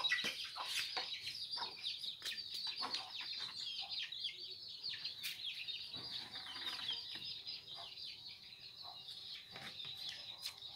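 Chickens clucking, with a steady mass of many short, high chirps and scattered short knocks.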